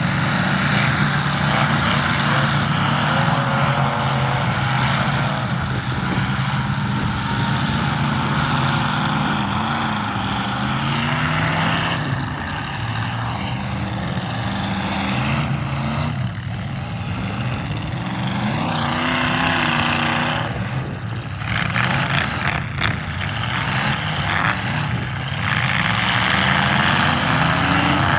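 Demolition derby car engines running and revving, the pitch rising and falling as the cars drive and push. There are a few sharp bangs about two-thirds of the way through.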